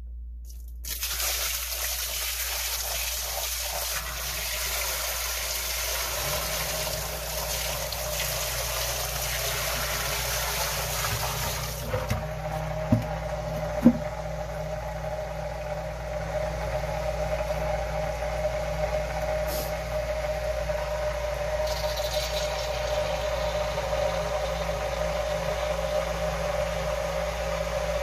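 Water poured from a 5-gallon bucket into a sump pit, splashing for about eleven seconds, to test the pump. About twelve seconds in, the submersible sump pump starts and runs with a steady hum, with two sharp knocks shortly after it starts.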